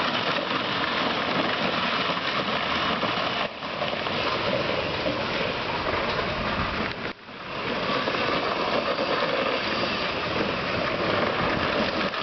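24-volt upgraded Power Wheels ride-on toy car driving: electric drive motors and gearboxes running steadily as the wheels roll over the ground, with a brief dip about seven seconds in.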